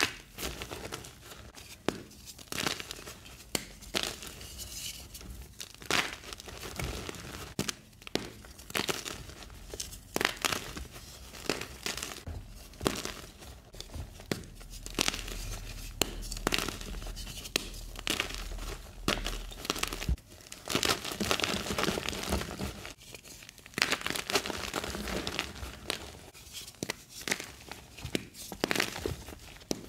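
Blocks of gym chalk crushed and crumbled between the fingers over a bed of loose chalk powder: irregular sharp crunches and snaps over a soft, dry crumbling.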